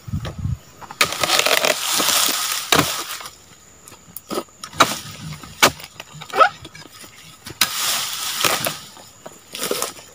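Dry rustling and scraping among dead palm fronds and leaf litter, in two long stretches, with several sharp cracks and knocks in between.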